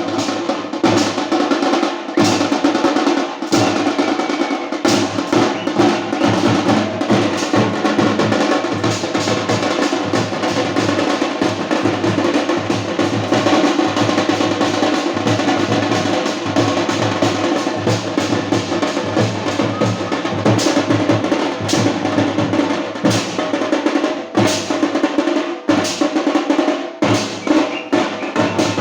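A street band's drums, snare and bass drum, playing a fast, dense, continuous beat.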